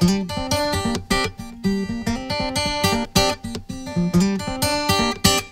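Acoustic guitar music: chords strummed and notes picked in a steady, busy rhythm.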